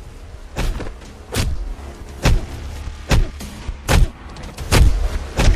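A series of heavy hit and punch sound effects, about seven strikes landing roughly one every second, over a steady low hum: a beating with a wooden stick.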